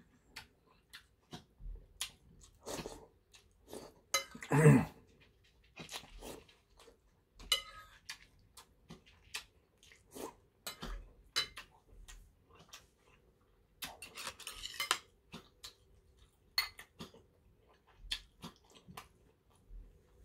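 A metal spoon clinking and scraping against a large porcelain soup bowl in many short, scattered taps. Between the taps come mouth sounds of sipping and eating soup, with a short, louder vocal sound about four and a half seconds in.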